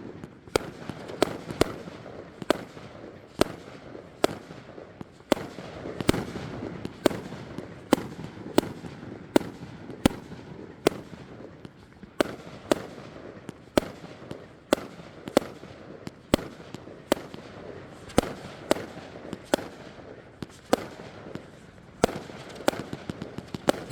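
Ace of Spade 42-shot consumer fireworks cake firing, a long run of sharp bangs coming one after another roughly every half second to a second.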